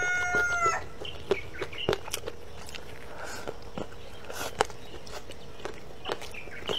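A rooster's crow ends about a second in. It is followed by scattered soft clicks and smacks of someone eating and a few short high chirps from the poultry.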